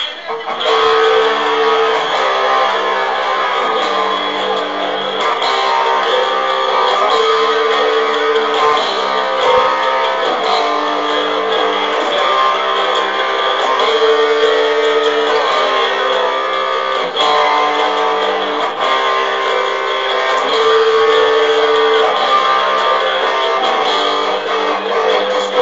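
Electric guitar strumming chords in a steady rock song, picking up again after a brief break right at the start.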